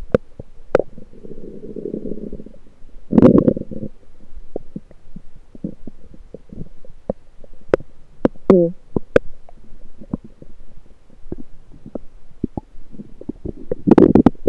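Lower-intestine bowel sounds heard through an electronic stethoscope pressed to the belly: a low rumble about a second in, a louder gurgle a few seconds in, a short squeak falling in pitch just past the middle, and another loud gurgle at the end, with scattered sharp clicks throughout.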